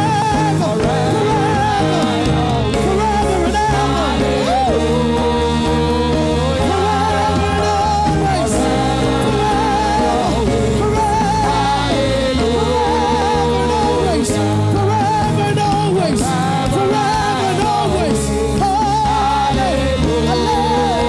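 Gospel worship music: a vocalist singing a melody with vibrato over sustained keyboard and bass.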